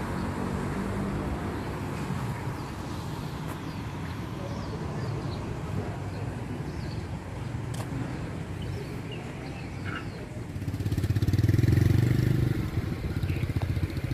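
Motor vehicle engine running with a steady low hum, swelling louder about eleven seconds in as a vehicle passes close.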